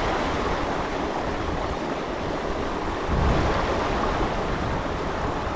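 Creek water rushing steadily over riffles, with wind buffeting the microphone in low rumbles, strongest about three seconds in.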